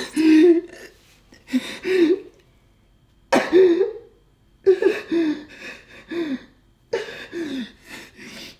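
A man sobbing in grief: a run of about eight broken, voiced sobs with short gaps between them, many falling in pitch.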